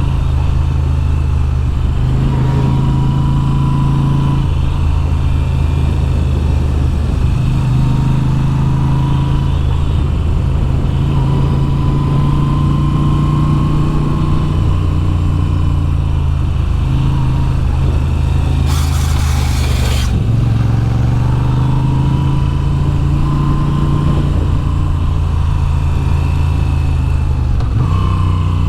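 Moto Guzzi V7's transverse V-twin engine running on the move, its note stepping up and down in pitch every few seconds as the throttle and gears change. About two-thirds of the way through there is a brief hiss, lasting a little over a second.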